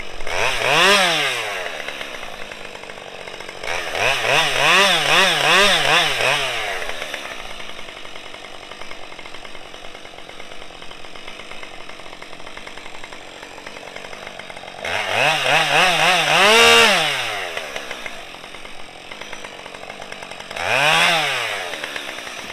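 Husqvarna 550 XP two-stroke chainsaw revving up in four bursts while cutting a branch, dropping back to idle between them; the second burst rises and falls several times in quick succession.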